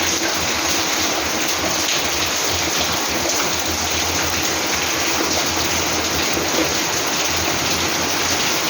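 Heavy rain pouring down steadily, a dense, even hiss of downpour.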